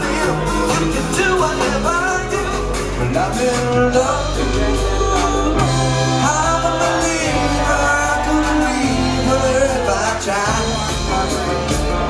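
A live rock band playing: a woman sings lead over electric guitar, electric bass and drums, with bass notes that hold and change in steps and a steady run of cymbal strokes.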